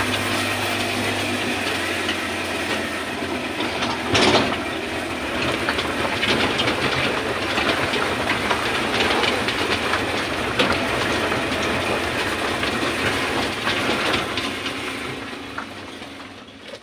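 Steady running rumble and rattling of a tourist train in motion, with a loud clatter about four seconds in. The noise fades away near the end.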